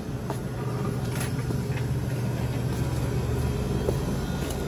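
A car running, heard from inside the cabin as a steady low engine and road hum, with a few faint clicks.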